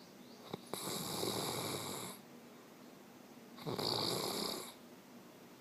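A sleeping man snoring: two long, rough snores about two seconds apart, with quieter breathing between them. Two short clicks come just before the first snore.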